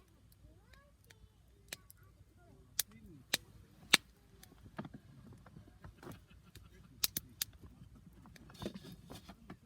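Wood fire crackling: sharp, irregular pops and snaps of burning wood, a quick cluster of three about seven seconds in.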